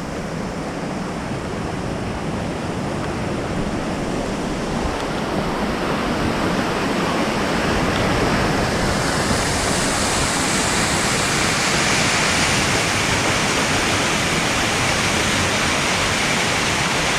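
Steady rush of a tall cascading waterfall, growing steadily louder, with the hiss turning brighter about halfway through.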